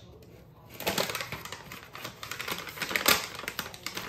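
Stiff paper panettone mold crinkling and rustling in a dense run of crackles as hands press the dough down into it and tug at the paper wall, starting about a second in.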